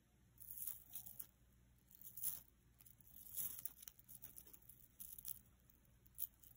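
Faint rustling and light clinking of a long gold-tone metal chain necklace being handled, its links sliding over each other and over the fingers in several short, irregular bursts, with a small sharp click about six seconds in as the clasp is worked.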